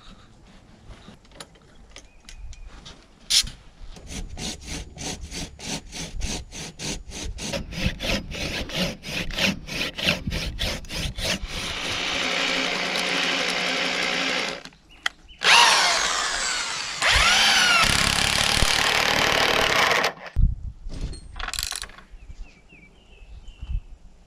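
Cordless drill boring a hole through a wooden timber-frame beam with a long drill bit. First comes a run of regular ticks, about four a second. Then the drill runs steadily in two long stretches with a short break between, and stops a few seconds before the end.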